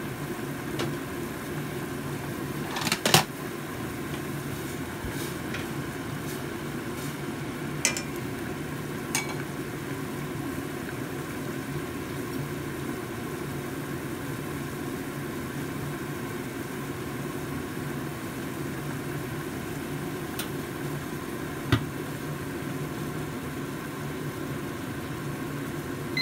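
Pot of vegetable macaroni soup simmering on a gas stove burner, a steady low hum throughout. A few sharp metallic clinks break it, the loudest about three seconds in and another near the end.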